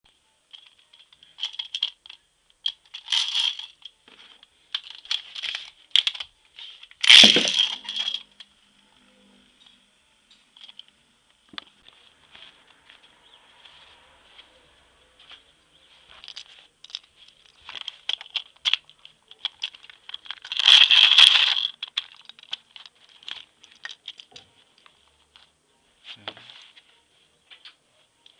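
Hands unboxing a Beyblade Rev Up launcher: plastic packaging and plastic parts rustling, tearing and clicking in short bursts, loudest about seven seconds in and again about twenty-one seconds in. A faint steady high whine runs underneath.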